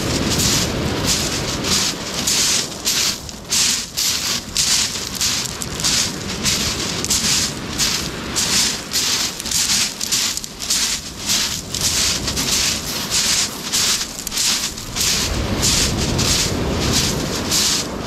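Footsteps crunching on a beach of small white pebbles, a steady walking pace of about two steps a second, over a low steady rumble.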